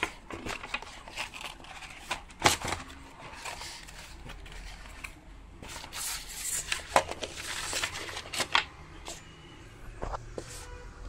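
Cardboard packaging being handled: rustling and scraping with scattered knocks and clicks as a corded mouse and its cable are worked out of the box insert.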